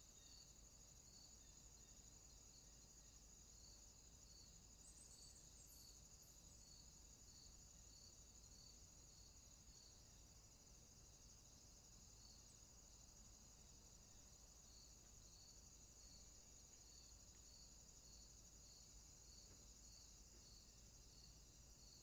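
Faint insect chorus: a steady high trill with a lower, softer chirp repeating a little faster than once a second.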